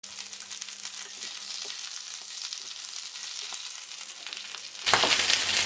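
Fresh spinach leaves sizzling in a spoonful of olive oil in a non-stick frying pan, turned over with a wooden spoon that scrapes lightly now and then. About five seconds in, the sizzle jumps suddenly much louder.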